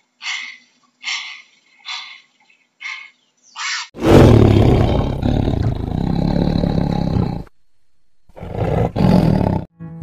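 A tiger roaring: one long roar starting suddenly about four seconds in, then a second, shorter roar near the end. Before it comes a run of short, evenly spaced calls, about one a second.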